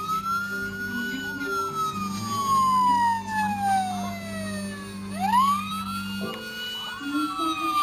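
Electronic police-siren wail from the sound module of a 1/24 scale Dodge Charger police model: the pitch sweeps up quickly, then falls slowly over about four seconds, and the cycle starts again about five seconds in. A low steady hum runs underneath and stops about six seconds in.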